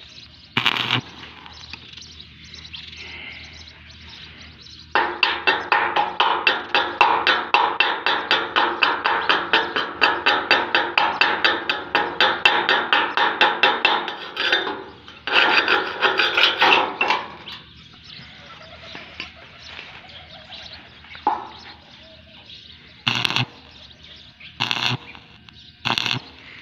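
Chipping hammer rapidly tapping slag off a fresh stick weld on steel tubing, about six taps a second for around nine seconds, then a shorter spell. Near the end, several short bursts of a stick-welding arc being struck on the joint.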